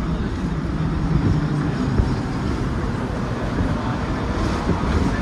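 Hong Kong double-decker tram running, heard from the upper deck: a steady rumble of the wheels on the rails with a faint motor hum that fades about two seconds in.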